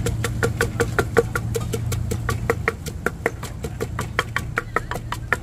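Pestle pounding chillies in a clay mortar, a fast steady run of dull knocks at about four to five strokes a second, over a steady low hum.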